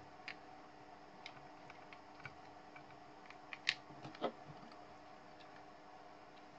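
Faint clicks and taps of hands handling braided fishing line, a small plastic handle and a digital hanging scale, with two louder sharp clicks a little past the middle. A faint steady hum lies beneath.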